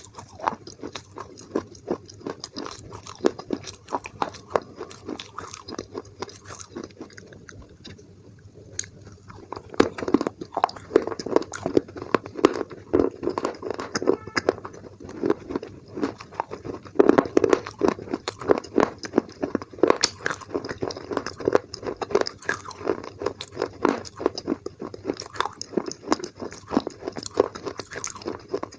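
Close-up crunching and chewing of a mini clay pot being bitten and eaten, a dense run of sharp crisp cracks. It thins out and quiets briefly about eight seconds in, then comes back louder and denser.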